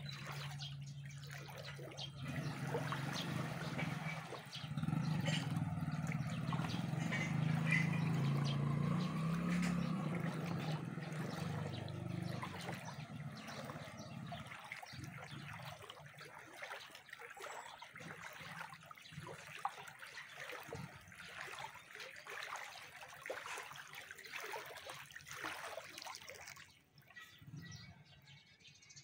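Brown floodwater sloshing and splashing as someone moves through it, with a low rumble under it through the first half.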